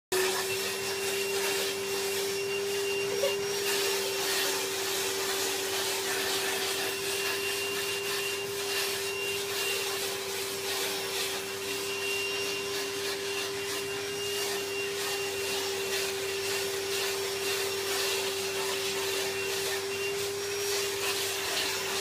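Vacuum cleaner running steadily with a constant mid-pitched whine over a rushing hiss, its hose nozzle being drawn through a dog's coat.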